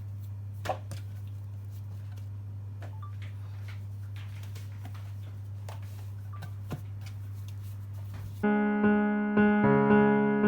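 A steady low hum with a few faint taps and knocks, then background piano music starts abruptly near the end, notes struck at an even pace of about two a second.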